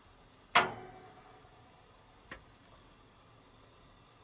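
A single sharp knock with a brief ringing tail, then a much fainter click about two seconds later: handling noise inside a small wooden hunting shanty.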